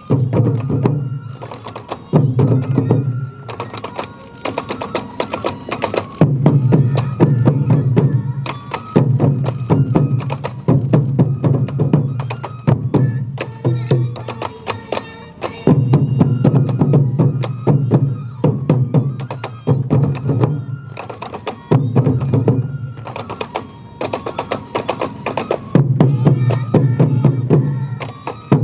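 Sansa odori festival music: taiko drums beating in a fast, driving rhythm with sharp rim clicks, over a sustained flute-like melody.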